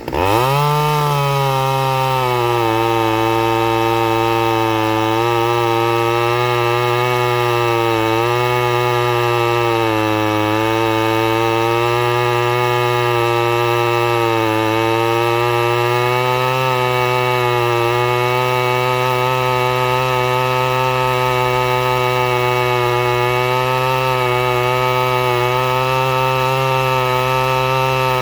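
Stihl 009L two-stroke chainsaw, on its standard single-screw carburettor, revving up sharply and then held at high revs. Its pitch sags slightly every few seconds, as it does when the chain is cutting through wood.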